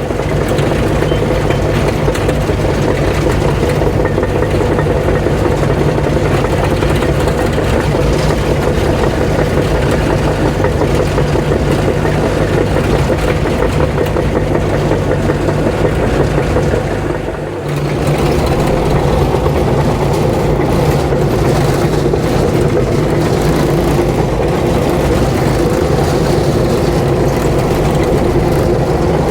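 Diesel engine of a heavy earthmoving machine running steadily while it strips topsoil and root mat, its level dipping briefly about two-thirds of the way through before picking back up.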